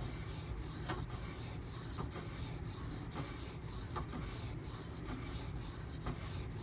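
Steel knife blade being sharpened on a 400-grit Naniwa Pro stone: a steady gritty scraping in strokes about two a second, with a brief break at each change of direction.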